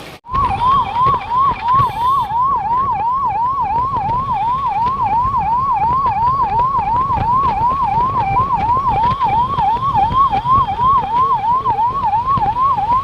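Emergency vehicle's electronic siren in a fast yelp, its tone climbing and snapping back down about three times a second, over a low vehicle rumble. It starts abruptly just after the beginning and runs on steadily.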